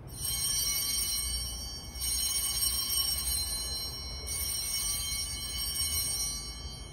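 Altar bells (a cluster of small Sanctus bells) rung three times, about two seconds apart, each ring sounding on and fading. These are the bells rung at the elevation of the consecrated host.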